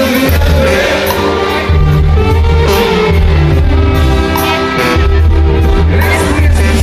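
Live regional Mexican band music, loud and reverberant: a tuba pumping the bass line under a drum kit and cymbals, with the rest of the band holding chords.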